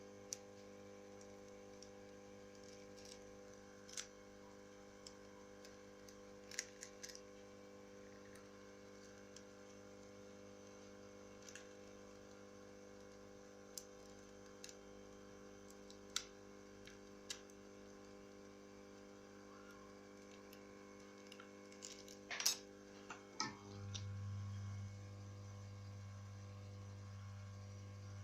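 Scattered light clicks and taps of small tools and parts while a Nokia Lumia 535 phone is being worked on, over a steady electrical hum. Near the end the hum changes to a deeper, louder one.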